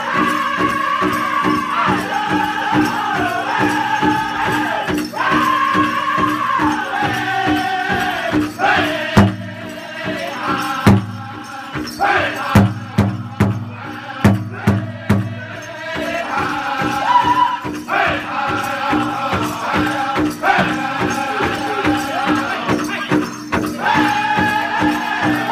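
Powwow drum group singing a grass dance song over a steady, fast beat on a big drum. About nine seconds in, the singing drops and the drum strikes a run of loud, spaced hard beats for several seconds, then the singing and steady beat pick up again.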